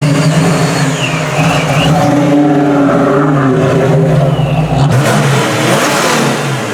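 A car engine revving loudly, its pitch holding fairly steady, with an abrupt change in the sound about five seconds in.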